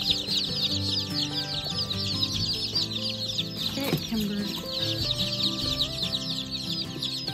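A box of about a hundred day-old Black Australorp and Rhode Island Red chicks peeping all at once, a dense, unbroken chorus of high cheeps.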